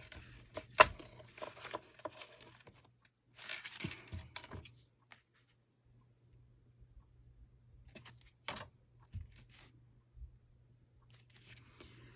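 Sheets of paper being handled and trimmed: a stretch of paper rustling, with a few sharp clicks and taps, one just under a second in and another about eight and a half seconds in.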